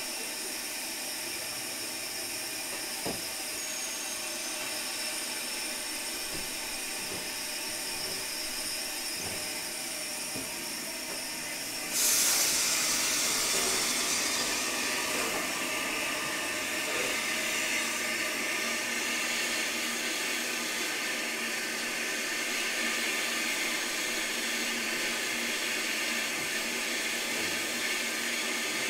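Southern Railway Schools-class locomotive No. 926 'Repton' hissing steam: a steady hiss with faint steady tones. About twelve seconds in, a louder, sharper hiss of escaping steam starts and carries on.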